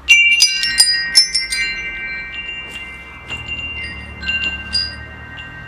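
Wind chimes ringing: a quick flurry of strikes at the start, then scattered single strikes, each note ringing on and slowly fading.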